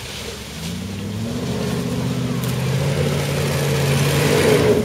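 Range Rover's Rover V8 engine revving under load as the 4x4 climbs a steep, rutted dirt slope; the engine pitch rises after about a second and the sound grows louder toward the end.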